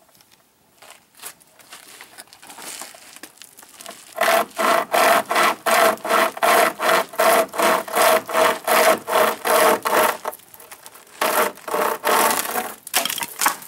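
Homemade pocket chainsaw, a chainsaw chain with paracord handles, pulled back and forth through a log, each stroke a rasp of the cutters biting the wood. Light, uneven strokes at first, then fast, even strokes about three a second from about four seconds in, a short pause, and a few more strokes near the end.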